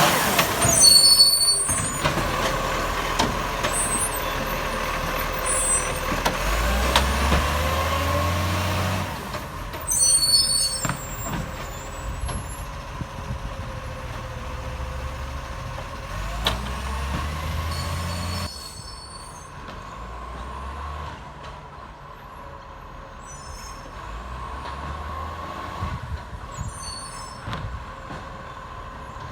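Acco garbage truck running with its leaking exhaust, with several short sharp air hisses from its air brakes. The engine is louder in the first half and drops away after about 18 seconds.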